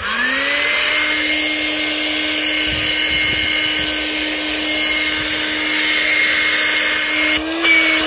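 Windek RCP-D23A 12 V car vacuum's motor switching on, its whine rising as it spins up and then running steadily with a rush of air. Near the end the pitch briefly lifts as a palm is held over the intake.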